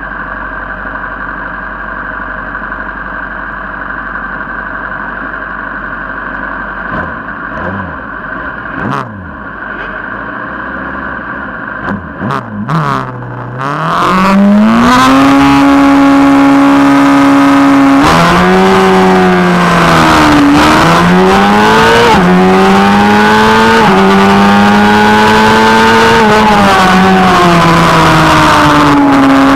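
Onboard 600 cc superstock racing motorcycle engine running on the starting grid with a few quick blips of the throttle. About halfway in it launches at full throttle for the race start and accelerates hard up through the gears, the revs climbing and dropping back at each of several upshifts, with wind rush building.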